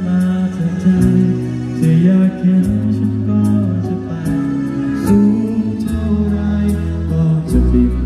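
Live band music with a male singer singing into a microphone over a bass line and a steady ticking beat.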